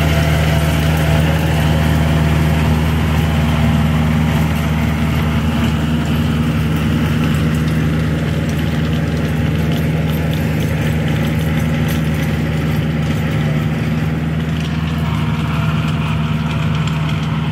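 Kubota tractor's diesel engine running steadily under load as it drives a rotavator tilling the soil.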